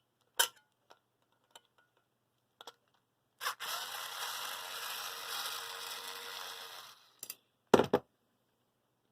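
A screwdriver undoing the screws that hold a hard drive in its metal bracket. There are a few light clicks, then a steady whirring for about three and a half seconds as a screw is backed out, and two sharp clacks near the end.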